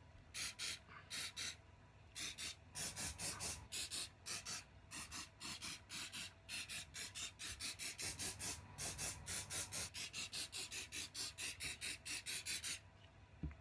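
Aerosol can of Crep Protect shoe protector spray let off in many short, gentle bursts, each a brief hiss, in quick succession of about two to three a second. The bursts stop shortly before the end.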